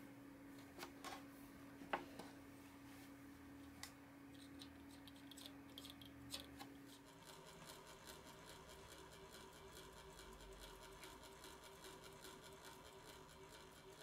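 Near silence: faint room hum with a few light clicks and taps in the first half, the loudest about two seconds in, from a rubber tube being fitted onto a Marey tambour's metal nozzle.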